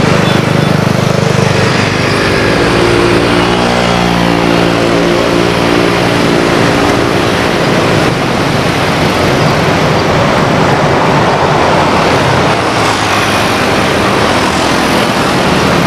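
Cessna 172 single-engine propeller plane flying past, its engine and propeller drone loud over a steady rushing noise. A cluster of engine tones stands out from about two to seven seconds in, then fades into the rush.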